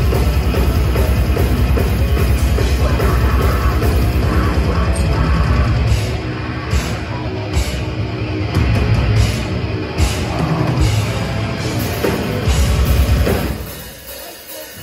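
Death metal band playing live, heard from beside the stage: distorted guitars and drums at full volume, thinning out and getting quieter about six seconds in, coming back in full around twelve seconds, then dropping away sharply just before the end.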